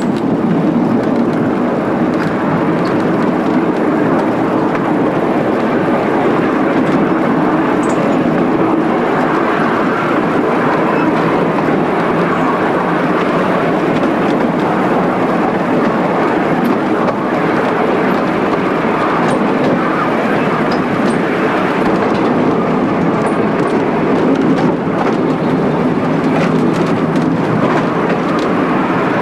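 Steady running noise of a 15-inch-gauge miniature tramcar, heard from on board as it rolls along the track, with a few faint clicks.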